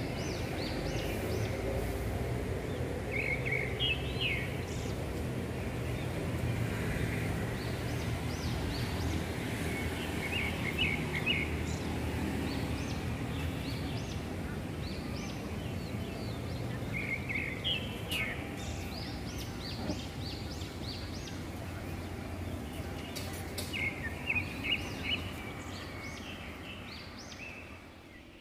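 Street ambience with a steady city rumble and birds chirping in short runs every few seconds, fading out near the end.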